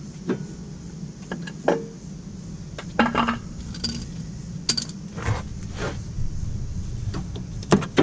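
Metal tools and car parts clinking and knocking as a front wheel hub and brake rotor are put back together: a dozen or so separate clanks, some ringing briefly, the sharpest near the end.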